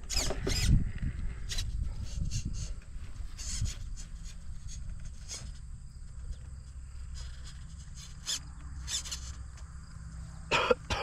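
Insects chirping steadily and high, with a low rumble underneath and scattered short clicks and scrapes, and a louder clatter near the end.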